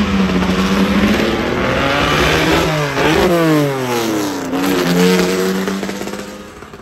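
Racing car engine accelerating hard away from the start line and past at close range. The revs climb and shift, the pitch drops steeply as the car goes by about three seconds in, then it climbs again and fades as the car pulls away.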